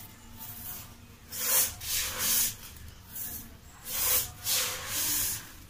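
Washed finger millet (ragi) scooped by hand out of a steel bowl and spread onto a cloth, the wet grains rustling in about four short hissing rushes.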